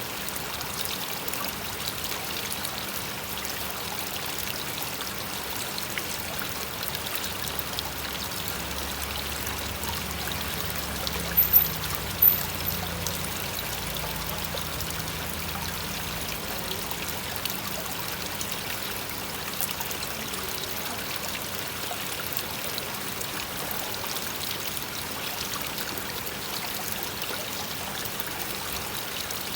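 Small koi pond waterfall pouring steadily into the pond, an even rushing splash of water. Two brief, sharp, loud sounds come close together a little before halfway through.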